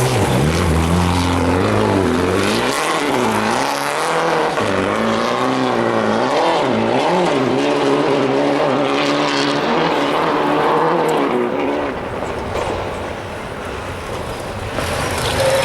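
Rally car engine revving hard through the stage, its pitch rising and falling again and again as the driver accelerates, lifts and changes gear. It fades away about twelve seconds in.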